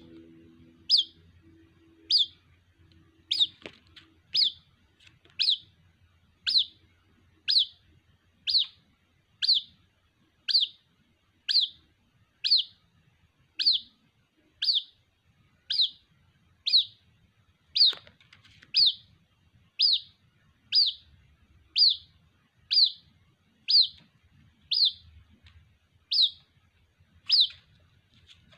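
White-breasted waterhen chick calling for its parent: a high, sharp, downward-slurred peep repeated steadily about once a second.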